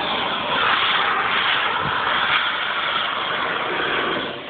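Steady hissing noise of running machinery. It drops away about four seconds in.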